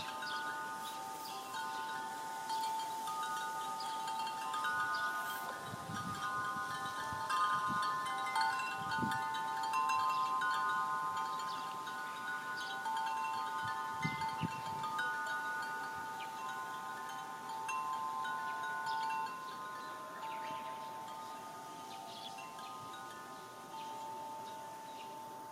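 Wind chime swaying in the wind and ringing continually, several different pitches struck again and again and ringing on over one another.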